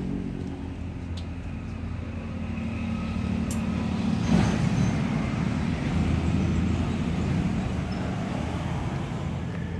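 Road traffic passing: a steady low engine rumble that swells about halfway through as a vehicle goes by, then eases off.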